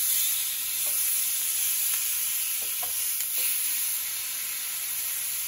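Raw seasoned salmon steaks sizzling on a hot ridged griddle pan, a steady high hiss with a few faint ticks.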